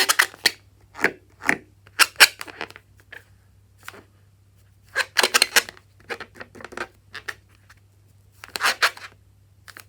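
Slime-making handling sounds: short clusters of sharp crackling clicks, with a quiet stretch in the middle and a last cluster near the end.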